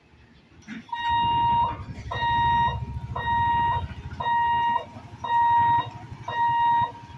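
Level-crossing warning hooter beeping at one steady pitch, about one beep a second, starting about a second in, sounding as the boom barriers lift. Motorcycle engines run underneath.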